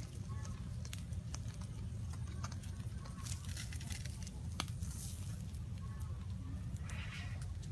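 Small twig-and-ash fire crackling with scattered sharp pops, over a steady low rumble.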